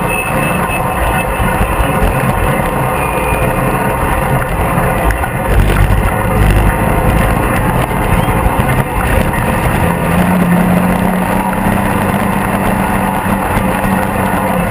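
Polaris RZR 800 side-by-side running at speed on a dirt road, heard from inside its open cab: the engine's continuous drone under wind rush and tyre noise. A steady engine note comes up about ten seconds in.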